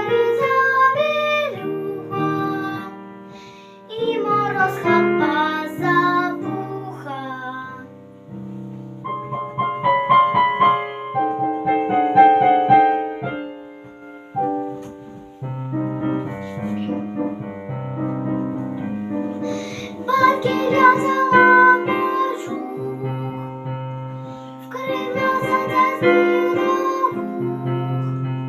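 A girl singing a song to piano or keyboard accompaniment, her voice coming in phrases of a few seconds with short gaps where only the accompaniment plays.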